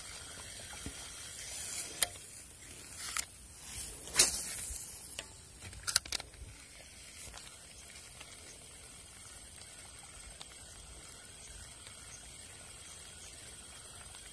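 Fishing rod and reel being worked during a lure retrieve: a handful of sharp clicks and swishes between about two and six seconds in, the loudest near the middle, over a faint steady outdoor hiss.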